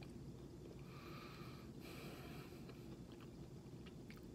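Quiet room tone: a steady low hum, with a faint hiss-like sound rising and fading for about two seconds partway through.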